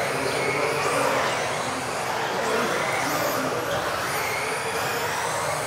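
Several electric RC off-road race cars of the modified class running together in a sports hall: thin, high-pitched motor whines that keep rising and falling as the cars accelerate and brake, over a steady rush of tyres on the track surface.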